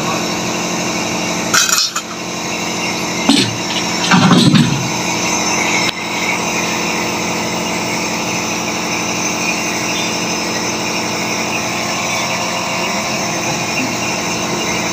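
A steady mechanical hum runs throughout. Short sharp clicks or knocks come at about two seconds, three and a half seconds, and four to five seconds in.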